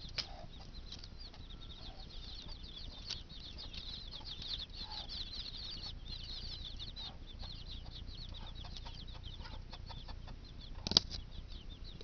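A brood of week-old chicks peeping continuously, a dense stream of high, quick, falling notes. A few sharp clicks come from the wire-mesh cage being handled, the loudest near the end.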